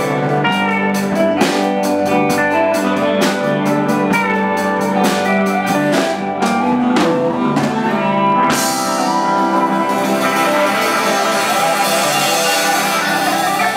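Live blues band playing: electric guitar lead over a drum kit keeping a slow steady beat. About eight and a half seconds in the beat stops and a held chord rings on under a cymbal wash, as at the end of the song.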